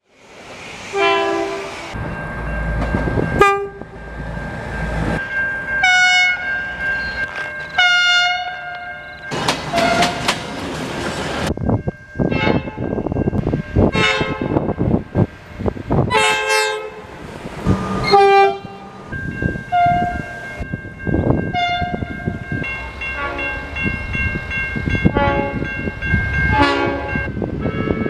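Air horns of several V/Line trains sounding one after another, some short toots and some held blasts of a second or two, each with several notes at once. Wheels clack over rail joints under some of the blasts.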